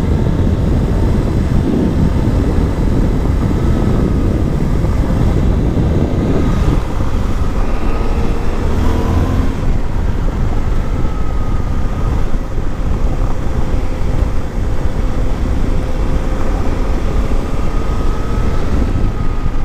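Suzuki V-Strom 800 DE's parallel-twin engine running under way, its pitch drifting slowly up and down with speed, under a steady low rumble of wind and road noise.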